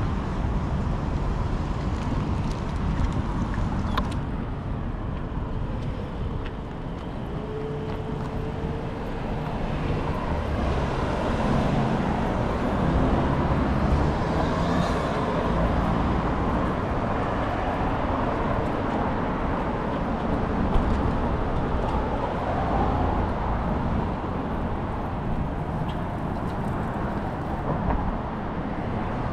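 City street traffic noise with an uneven low rumble of wind on the microphone of a moving bicycle.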